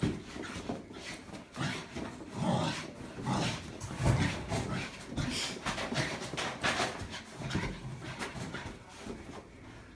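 English Staffordshire bull terrier wrestling and shaking a pillow in rough play: the dog's noises and the thrashing pillow come in irregular bursts, a couple a second.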